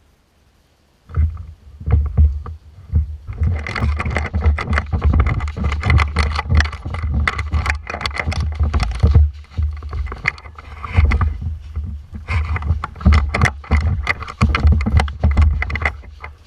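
Heavy rumbling buffeting and dense, uneven rustling and knocking on a GoPro's microphone, starting suddenly about a second in: the camera-wearer on the move with the camera rubbing and bumping against gear.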